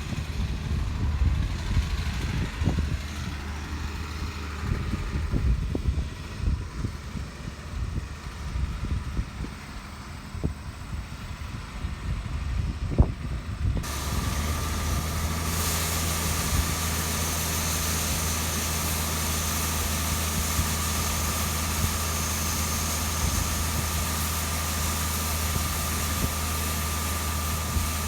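Harvest machinery running: a low, uneven rumble with scattered knocks. About halfway through it cuts to a steady engine drone with a thin high whine.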